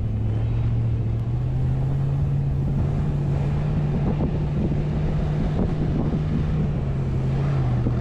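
Toyota Land Cruiser 4.7 V8 engine pulling the truck through deep snow. Its note rises a little over a second in, holds steady, and eases back near the end, over a steady rush of tyre, snow and wind noise.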